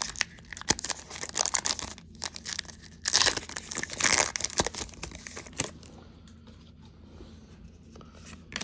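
Wrapper of a Topps Heritage Minor League baseball card pack being torn open and crinkled by hand, in quick crackling bursts; the crinkling dies down after about six seconds to faint rustling.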